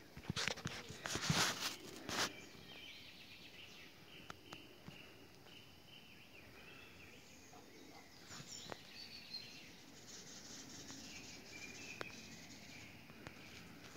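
Faint wild birds chirping in woodland, with a cluster of loud scuffs in the first two seconds.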